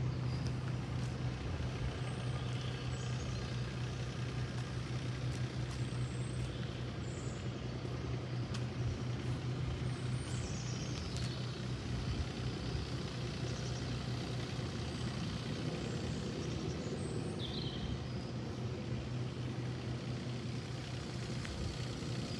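Thwaites Mach 201 one-tonne straight-tip dumper's diesel engine idling with a steady, unchanging hum.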